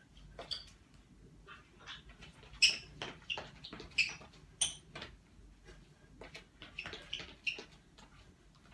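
Running shoes squeaking and tapping on a tiled floor as she steps and moves through exercise moves: a string of short, irregular squeaks and footfalls, the loudest about two and a half seconds in.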